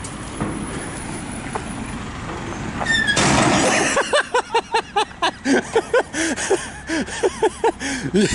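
Street traffic passing with a loud rush of noise about three seconds in. Then a run of rhythmic squeaks, two or three a second, from the pivots of a metal rocking playground platform as it is rocked.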